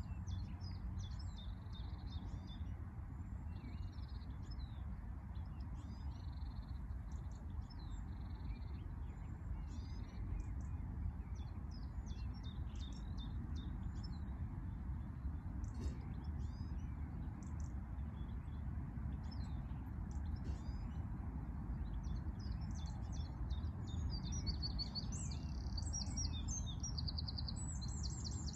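Songbirds chirping and calling, with a denser repeating song near the end, over a steady low background rumble.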